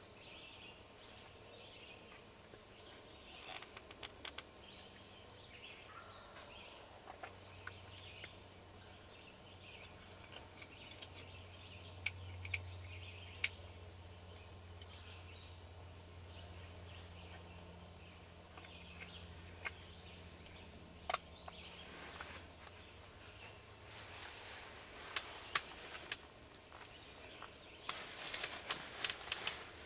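Faint woodland sounds: scattered ticks and rustles in dry leaf litter, with a faint low drone through the middle and a flurry of rustling near the end.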